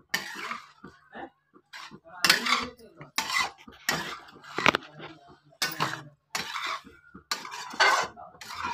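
Metal spatula scraping and stirring penne pasta in masala sauce around a metal kadhai, in repeated sharp strokes about one to two a second.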